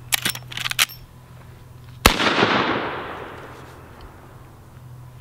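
Marlin 1894 lever-action rifle in .44 Magnum: a quick run of metallic clicks as the lever is worked to chamber a round, then about a second later a single loud shot with a long echo dying away.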